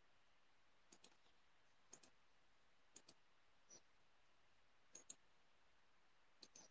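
Faint computer mouse button clicks, about six of them, mostly in quick pairs, roughly one a second.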